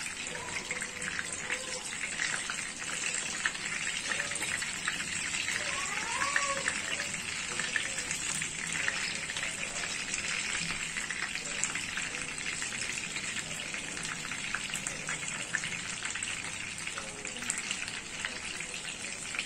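Marinated chicken leg pieces shallow-frying in hot oil in a frying pan: a steady sizzle full of fine crackling.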